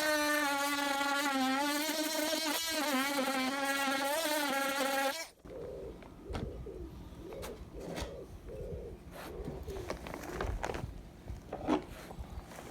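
Oscillating multi-tool running with a steady high-pitched buzz, its pitch wavering slightly under load, cutting out suddenly about five seconds in. Quieter scraping and light knocks follow.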